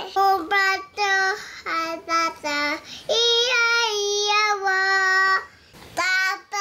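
A toddler girl singing in a high voice: a run of short sung notes, then one long held note about three seconds in that lasts some two seconds.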